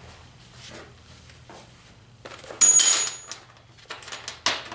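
Clatter of tools and metal parts being handled on a steel workbench, with light knocks and clicks. About halfway through there is a short, loud burst of hissing noise, and another sharp burst comes near the end.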